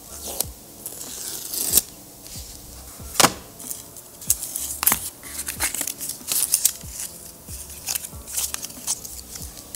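Cardboard and paper packaging of an Apple Watch Ultra box being opened and handled: rustling, crinkling and tearing of paper with sharp cardboard taps and clicks, the two loudest about three and five seconds in.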